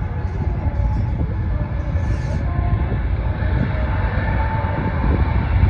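Airbus A350 airliner's twin Rolls-Royce Trent XWB turbofans at takeoff power as it rolls down the runway: a loud, deep engine roar with a faint whine that rises slightly, growing louder toward the end.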